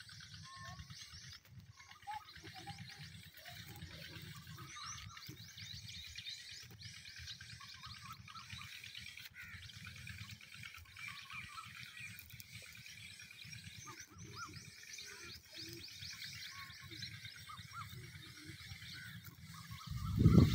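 Many small birds chirping over a steady low rumble. Right at the end a much louder low sound starts.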